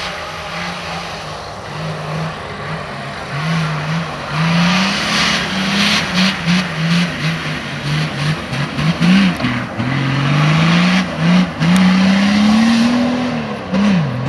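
Nissan Patrol 4x4's engine revving hard off-road, its pitch rising and falling again and again with throttle and gear changes. Near the end it climbs in one long rise, then drops sharply.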